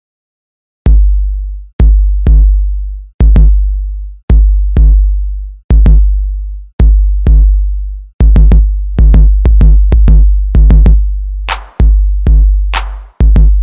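Hip-hop drum-machine beat starting after a moment of silence, about a second in: deep bass-drum hits that each ring out low, topped by sharp clicks. The hits come faster from about two-thirds of the way through, and sharper noisy snare-like hits join near the end.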